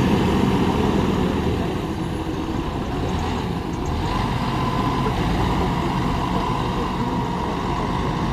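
City bus pulling away from a stop and driving off at low speed, its engine running steadily with a faint whine over the rumble.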